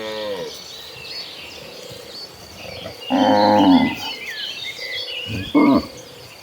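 Cattle mooing: one call trailing off at the start, a loud call about three seconds in, and a short call near the end. Faint high chirps run behind them.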